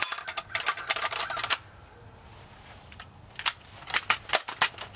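Daisy Powerline 35 BB gun being handled: a quick run of small clicks and rattles of its metal and plastic parts, a quiet pause of about two seconds, then another run of clicks.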